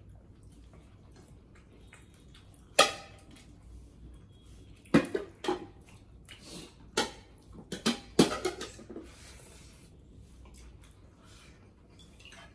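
People eating with their hands from plates: a scattering of sharp clicks and smacks, bunched between about three and nine seconds in, then only quiet room tone.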